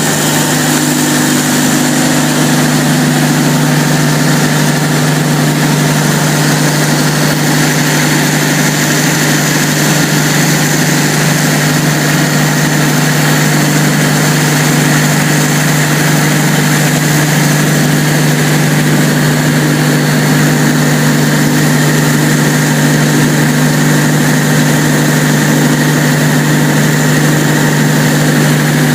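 Cummins KTA38-G4 V12 diesel engine of a 900 kW generator set running loud and steady at constant speed, with a deep even hum and no change in pitch.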